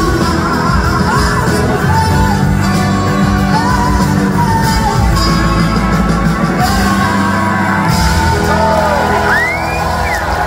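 Live blues-rock band with a female lead vocal over electric guitar, bass and drums, in the closing bars of the song. Near the end the band eases off and audience whoops and shouts rise over it.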